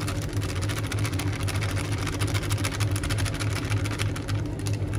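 A small motor running with a steady low hum, and a fast, dense rattle of fine clicks over it.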